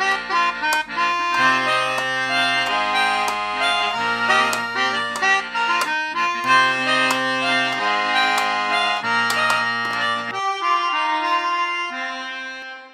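Several melodica parts playing together in harmony, held reedy notes over a low bass line. The bass drops out about ten seconds in, and the upper notes ring on and fade away at the end.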